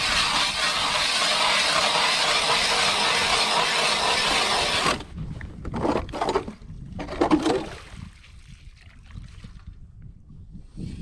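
Ice auger boring through lake ice: a steady grinding, hissing noise of the blades cutting ice that stops abruptly about five seconds in, followed by a few irregular knocks and scrapes.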